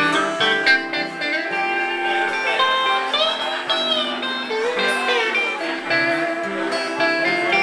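Pedal steel guitar playing an instrumental break, its sustained notes sliding and bending in pitch, over strummed acoustic guitar accompaniment.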